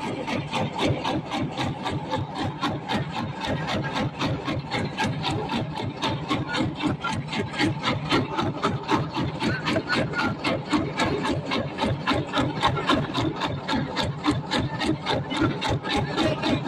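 Fishing boat's engine running steadily, a rapid even chugging of about five beats a second.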